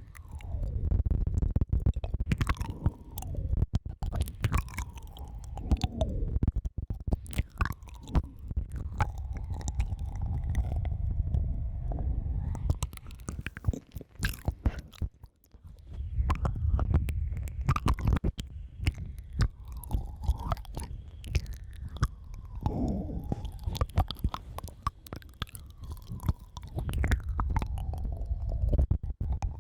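Close-miked ASMR mouth and breath sounds: wet clicks and breathy blowing into the microphone, with faint wavering tones gliding up and down. They drop out briefly about halfway through.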